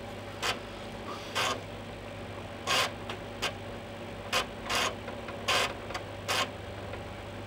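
Amiga 3.5-inch floppy drive loading a Workbench 1.3 boot disk: irregular short clicks and chatters of the read head stepping across the tracks, about eight in all, over a steady low hum.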